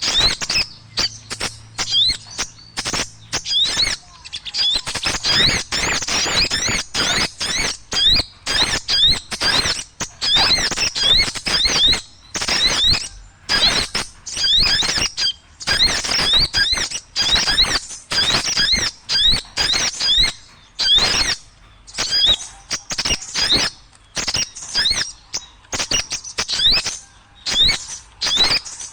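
A noisy chorus of small birds chattering and squeaking in quick high-pitched chirps and sweeps, coming in rapid choppy bursts with short breaks; a bird-lure call recording meant to draw other birds in.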